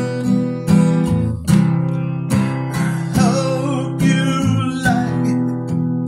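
Epiphone acoustic guitar strummed in a steady rhythm of chords.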